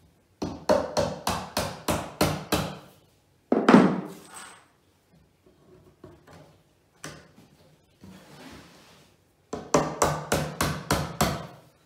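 A hammer tapping white pegs into the edge of an IKEA Malm drawer's particleboard panel: a quick run of about ten blows, a single heavier thump about three and a half seconds in, a few softer knocks, then another quick run of about ten blows near the end.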